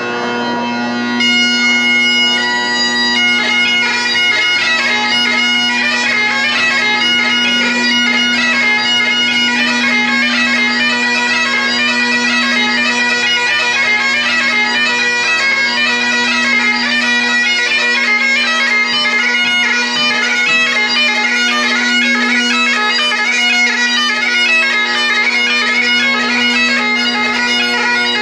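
Great Highland bagpipe playing: the drones sound a steady low chord throughout, and about a second in the chanter comes in on a held note before breaking into a tune of quick, ornamented notes.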